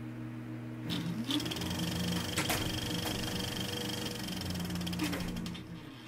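Film projector running, a fast even clatter over a low hum, with a few sharp clicks; it fades near the end.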